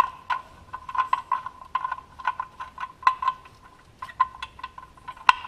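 Ratchet wrench clicking in short irregular runs while tightening a car's oil drain plug, with a sharper click near the end. The plug turns stiffly on a thread damaged by earlier over-tightening.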